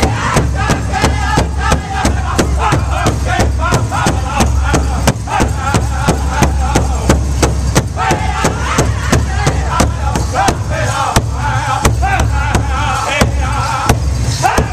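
Powwow big drum beaten in a steady fast rhythm, about three beats a second, under a group of men singing together in high, wavering voices.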